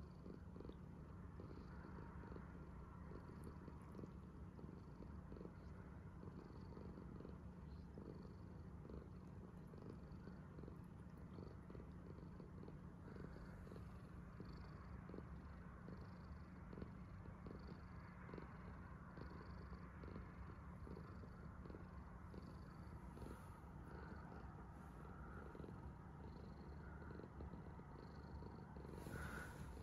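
A domestic cat purring steadily and low.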